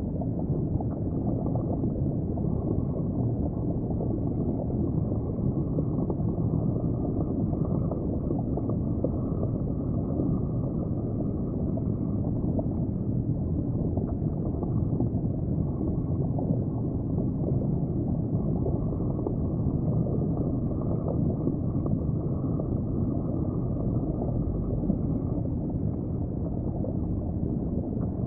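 Steady, muffled low rumble of water heard underwater in an aquarium tank.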